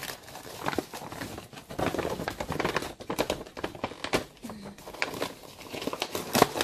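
A paper gift bag crinkling and rustling as hands pull and fold it open along its glued seams, with irregular sharp crackles and the loudest crackle near the end.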